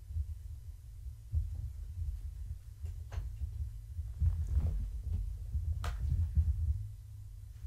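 Soft, irregular low thuds of kittens running and pouncing on a carpeted floor, with a few faint clicks, over a steady low hum.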